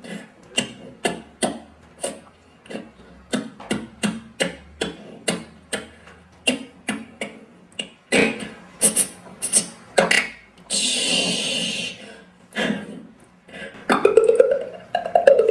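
A man making vocal sound effects with his mouth, beatbox-style: a steady run of sharp clicks, about two and a half a second, then a few louder pops. A long hiss follows, and near the end a wavering voiced sound that rises and falls in pitch.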